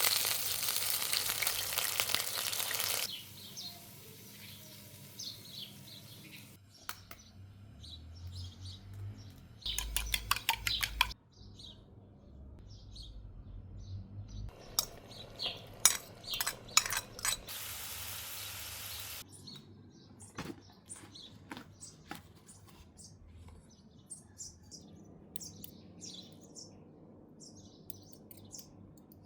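Home cooking sounds: food sizzling loudly in a pan at the start and again later, utensils knocking and scraping against pots, and a run of quick knocks about ten seconds in. Birds chirp faintly throughout.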